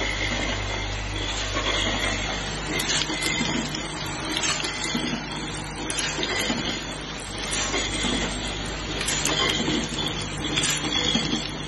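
LED bulb holder pin assembly machine running: a steady mechanical rattle and hiss, with a sharper clack about every second and a half as the assembly station cycles. A low motor hum fades out about a second in.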